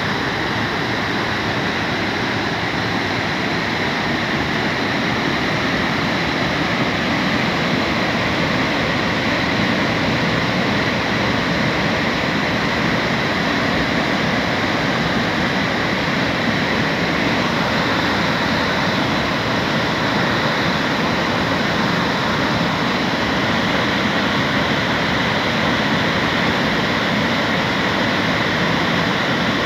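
Swollen mountain stream in flood after rain: muddy water rushing over boulders in a loud, steady rush.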